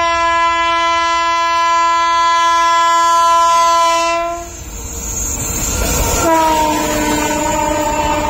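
Indian Railways train horn: one long steady blast of about four and a half seconds. Then the rumble of the approaching train rises, and a second long blast starts about six seconds in, slightly lower and falling a little in pitch.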